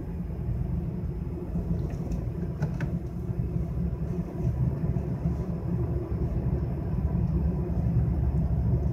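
Road noise inside a moving car's cabin: a steady low rumble.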